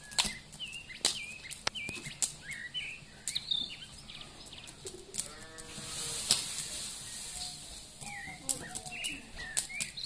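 Small songbirds chirping and whistling in short, rapid notes, with sharp clicks in between. A lower, drawn-out call comes in about five seconds in, and more low calls follow near the end.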